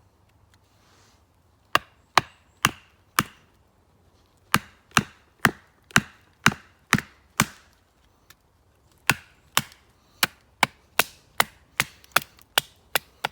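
Sharp wooden knocks, about two a second, in three runs with short pauses between: a baton striking a bushcraft knife's blade and pommel to drive it through a split pine board.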